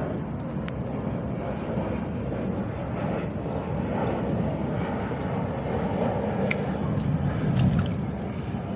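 Wind rumbling steadily on the microphone, its loudness rising and falling a little, with a couple of faint clicks in the second half.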